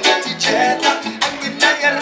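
Live reggae band playing: electric guitar and drum kit with a steady beat.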